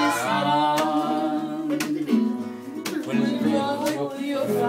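A man singing to his own acoustic guitar, the guitar picking out chords under the melody.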